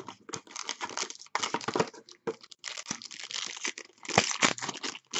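Foil wrapper crinkling and crumpling as it is handled in a cardboard trading-card box, a run of irregular crackles and rustles.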